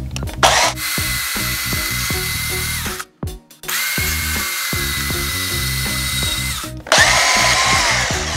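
Portable band saw cutting through a steel bolt in three runs, with a steady whine while the blade bites. It stops briefly about three seconds in and again near seven seconds, and the last run is the loudest. Background music with a beat runs underneath.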